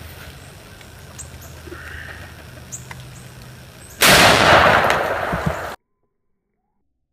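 A single rifle shot from an 1886 Winchester lever-action in .50-110 WCF, about four seconds in, its report rolling on for under two seconds before cutting off suddenly. Before it, quiet outdoor background with a few faint bird chirps.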